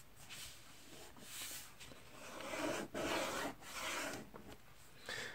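Sheet of printer paper being folded in half and creased by hand: several soft swishes as fingers rub and slide along the paper to press the fold flat.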